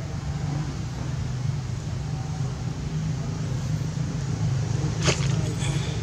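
Steady low outdoor rumble, like distant traffic, with a brief sharp click about five seconds in and a faint high squeak just after it.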